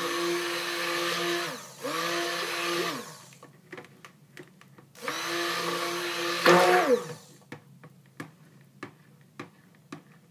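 Handheld stick blender pulsed in a pitcher of raw soap batter, mixing in the lye solution: three short runs of a second or two each, the motor's whine rising as it spins up and falling as it stops. The loudest moment comes at the end of the third run, followed by a few light clicks.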